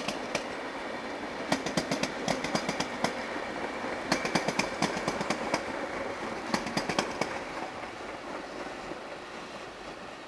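Metrotren electric commuter train running past and pulling away, its wheels clicking over rail joints in quick groups over a steady rumble. The sound fades over the last few seconds as the train draws off.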